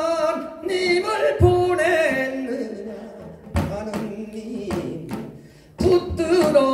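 A man singing a Korean traditional song through a microphone, holding long wavering notes, with a few single strokes on a Korean barrel drum (buk) in accompaniment.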